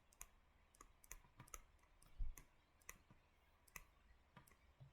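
Faint, irregular clicks and taps of a stylus writing on a tablet screen, with one heavier tap a little past two seconds in.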